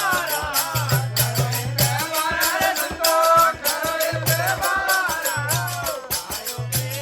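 Rajasthani desi bhajan music: a wavering melody line over a fast, even beat of drum and rattling percussion.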